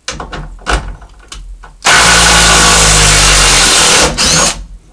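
Porter-Cable cordless impact driver run flat out for about two seconds, hammering on a large lag bolt in a 2x4, then a second short burst. Before it, a few clicks and knocks of the tool being handled.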